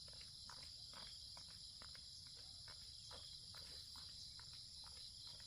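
Steady high-pitched insect chorus of crickets, with faint irregular light ticks or rustles a few times a second underneath.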